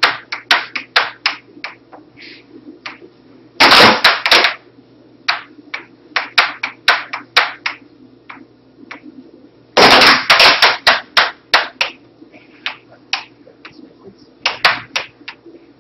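Air hockey puck cracking against the players' mallets and the table's side rails in fast exchanges, with dense flurries of hits about four seconds in and again about ten seconds in. Underneath runs the steady hum of the table's air blower.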